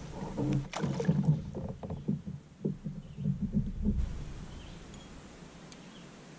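Handling knocks and thumps against a fishing kayak's hull as the angler moves about with his rod, with a few sharp clicks, for about four seconds before dying down.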